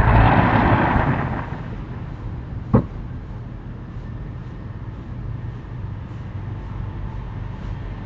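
Outdoor street ambience: a passing vehicle fading away over the first second or so, then a single sharp knock about three seconds in, over a steady low hum.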